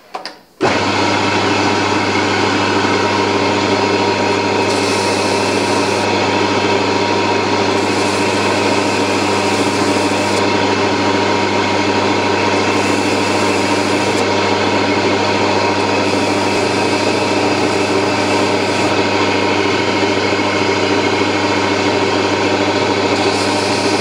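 Belt grinder running steadily, starting abruptly about half a second in, with a knife's G10 handle scales and steel pins being sanded against the belt to final shape.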